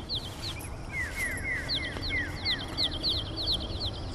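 Small birds chirping: a quick run of short, falling chirps, some high and some lower in pitch, over faint outdoor background noise.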